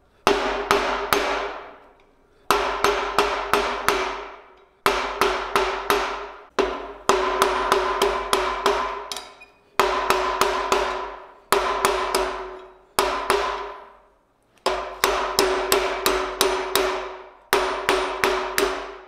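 Hand hammer striking a red-hot steel bar on an anvil, in quick bursts of four to six blows with short pauses between, about nine bursts in all. The anvil rings on a steady tone after the blows.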